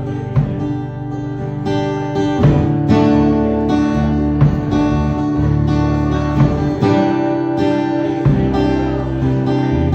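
Cutaway acoustic guitar strummed in steady chords, with no singing.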